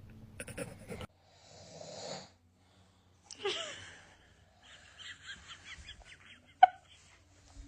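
A man snoring: two long rasping snores, the second louder, followed by a run of short choppy breath sounds. A single sharp click near the end is the loudest sound.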